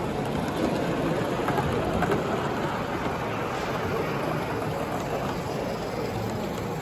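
Gauge 1 live steam model train running past on the track, its wheels on the rails and its escaping steam making a steady noise.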